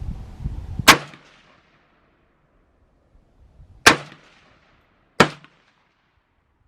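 Palmetto State Armory AK-47 rifle firing three single aimed shots, about three seconds and then just over a second apart, each a sharp crack with a short ringing tail. These are test shots while sighting in at 50 yards.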